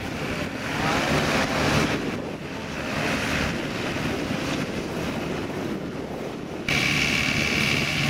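New Holland combine harvester running while cutting and threshing a standing grain crop: a steady, dense engine and machinery noise. Near the end the sound switches abruptly to a different machine running with a steady high whine.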